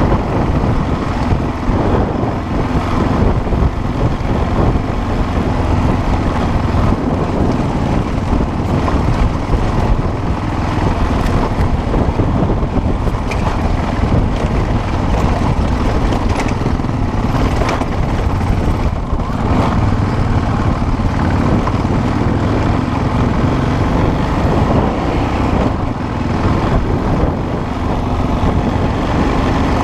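Off-road motorcycle running at a fairly steady pace while being ridden, its engine noise mixed with a loud, even rumble.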